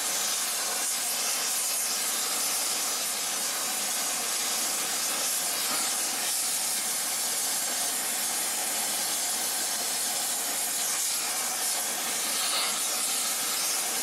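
Rosebud torch tip burning oxyhydrogen (HHO) gas with its valve open all the way: the flame makes a steady hiss.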